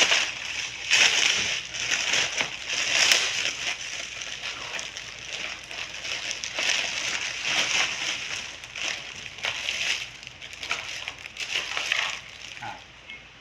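Packaging being unwrapped and handled: irregular crinkling and rustling that die away near the end.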